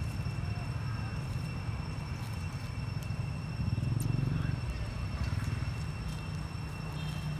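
Outdoor background sound: a steady low rumble with two thin, steady high-pitched tones above it, and a few faint brief calls or voices now and then.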